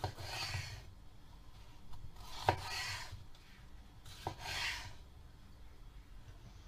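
Kitchen knife cutting through a red bell pepper on a wooden cutting board: three cuts, the second and third each with a sharp knock of the blade on the board.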